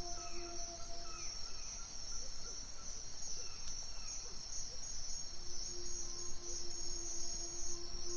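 Night forest ambience: a steady high-pitched insect chorus of crickets, with a soft sustained low drone that fades about a second in and comes back past the middle, and a few short falling chirps early on and again around four seconds.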